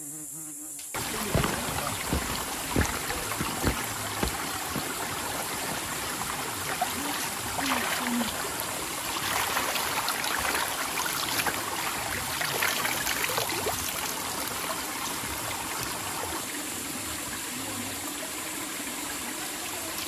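Shallow mountain stream running and trickling over rocks, starting suddenly about a second in, with splashes as a hand dips and scoops through the water.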